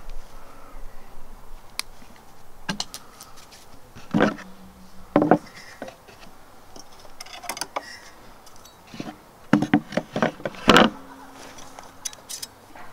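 Metal camp cutlery and a metal plate clinking and knocking on a wooden camp table, with a wooden tabletop panel lifted and set down. Two louder knocks, about four and eleven seconds in, each leave a short ringing tone.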